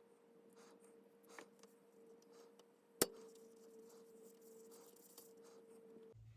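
Faint small clicks and taps with one sharp click about halfway, over a steady electrical hum that cuts off abruptly near the end.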